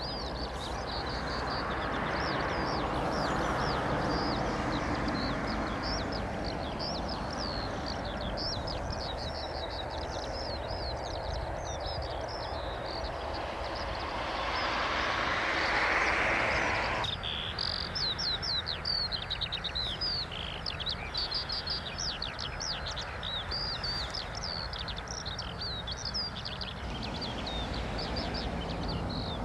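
Small birds chirping rapidly and repeatedly over a steady rushing background noise that swells and then cuts off abruptly about two-thirds of the way through.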